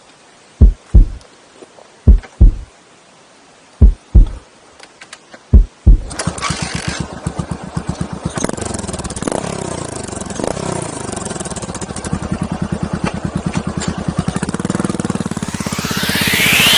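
Yamaha SR400's single-cylinder four-stroke engine being kick-started: four pairs of loud low coughs over the first six seconds, then it catches and settles into an even, loping single-cylinder idle through the exhaust.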